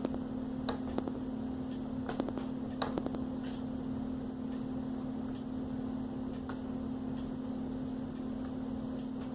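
Faint clicks and scratches of fingers peeling tape off a laptop's display cable connector, over a steady low background hum.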